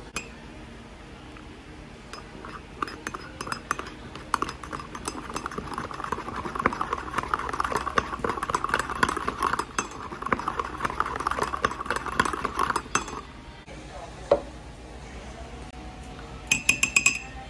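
Metal teaspoon stirring milk tea in a ceramic mug: a long run of rapid scraping clinks against the inside of the mug, stopping about thirteen seconds in. Then a single tap and a quick burst of ringing clinks near the end.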